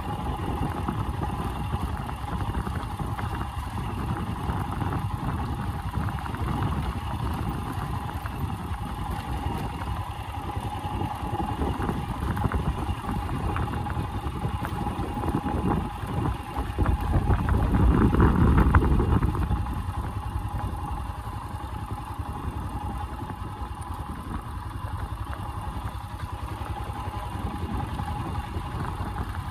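Motorcycle engine running as the bike is ridden slowly along a gravel track, a steady low rumble with a constant hum over it, growing louder for a couple of seconds a little past the middle.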